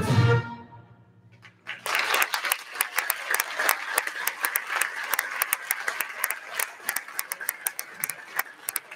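A school concert band's last chord cuts off and rings away in the gymnasium. After a brief hush, the audience starts applauding, and the clapping goes on steadily.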